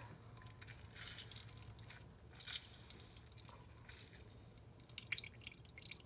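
Orange juice dripping and trickling into a bowl as a halved orange is squeezed by hand: faint, scattered soft drips.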